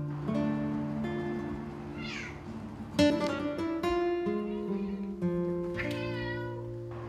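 Plucked acoustic guitar background music, with a cat meowing briefly twice, about two seconds in and again about six seconds in.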